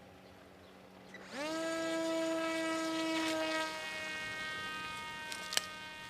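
Electric motor and propeller of a senseFly swinglet flying-wing drone spinning up about a second in with a quickly rising whine, then holding a steady high buzz as the drone is launched and climbs away, fading slowly. A brief click near the end.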